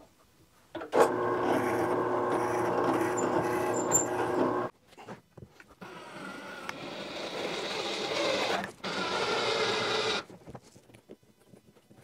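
Drill press motor running while it bores into a wooden block, a steady hum that stops abruptly after about four seconds. Then a cordless drill whirs in two runs, driving a threaded insert into the block.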